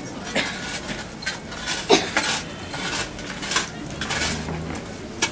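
Metal thurible swung on its chains while incensing a coffin, giving a string of irregular metallic clinks, the loudest about two seconds in.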